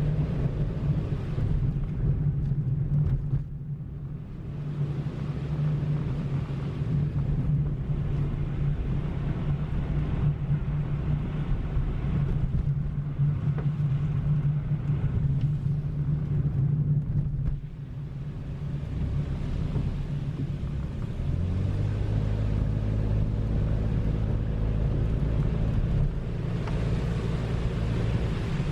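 Car engine and tyre noise heard from inside a car on the move. The engine note drops briefly twice and settles into a new, lower steady tone about 21 seconds in.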